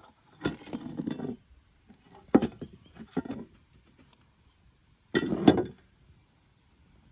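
Clinking and rattling of hard objects, in three short bursts, the last about five seconds in.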